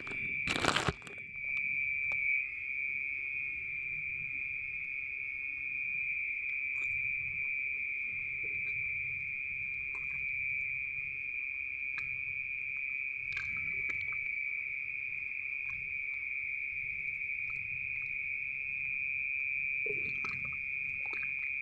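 An insect trilling in one steady, unbroken high note, with two sharp knocks in the first second and a few faint ticks and rustles.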